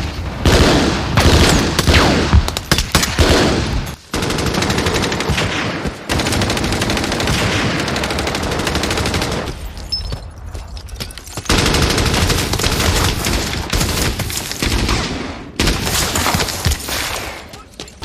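Film battle gunfire: rapid automatic-weapon bursts overlapping with rifle shots, cut off abruptly several times.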